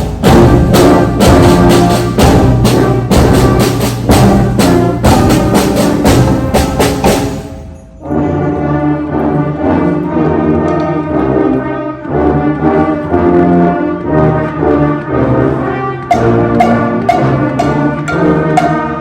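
Middle school concert band playing a holiday piece: brass over steady percussion hits. About seven and a half seconds in, the playing drops away briefly, then a passage of held brass notes begins, with the percussion coming back near the end.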